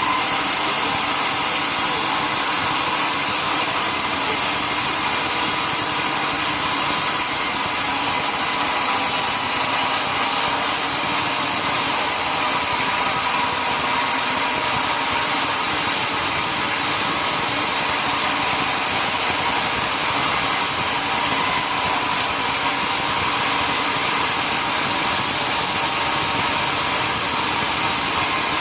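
Sawmill machinery running steadily without letup, a loud mechanical noise with a faint steady whine.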